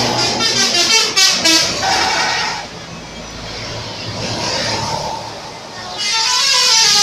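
A bus's multi-tone 'telolet' musical horn playing a short run of changing notes, with a noisy lull in the middle and the horn sounding again near the end.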